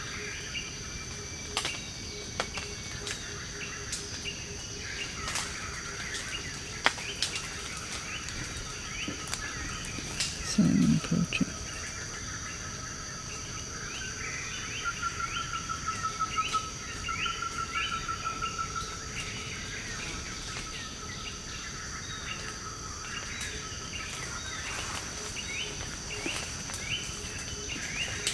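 Forest ambience: a steady high-pitched insect drone with short bird calls repeating throughout and a trill in the middle. About eleven seconds in there is one brief low sound, the loudest moment.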